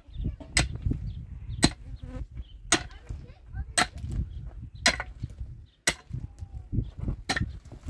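Sharp blows struck at an even pace, about once a second, over a continuous low rumble.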